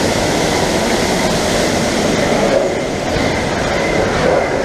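A log flume ride in motion: a steady loud rush of water and rattling from the ride's track.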